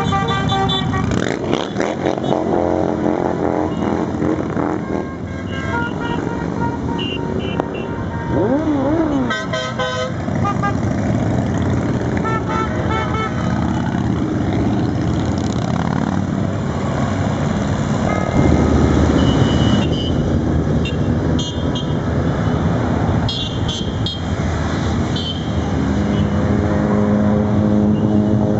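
A long procession of motorcycles riding past, engines running continuously, with riders sounding their horns in short toots several times through the passage.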